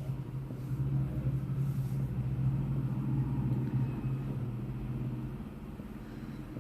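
Gas stove burner turned up high, its flame giving a steady low rumble under a pan of water being heated. The rumble swells about half a second in and eases near the end.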